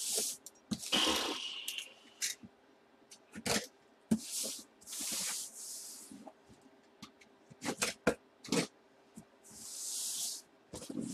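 A box cutter slicing through packing tape and scraping along a cardboard shipping box in several short strokes, with knocks and clicks as the box is handled.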